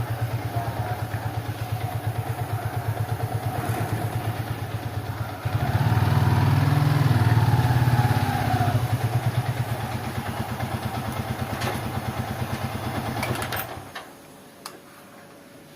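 Motorcycle engine running with an even low throb. It gets louder about five seconds in, settles back, then cuts off a couple of seconds before the end.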